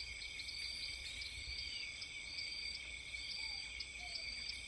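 Faint outdoor background: a steady high-pitched ringing with short chirps repeating about twice a second, over a low rumble.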